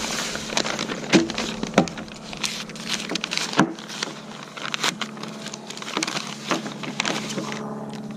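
Paper and plastic packaging rustling and crackling as an envelope is handled, opened and printed booklets are slid out, in a run of irregular crinkles and rustles.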